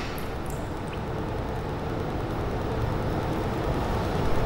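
Steady low background noise that grows slightly louder, with a few faint small clinks in the first second, as from a metal jigger touching a mixing glass.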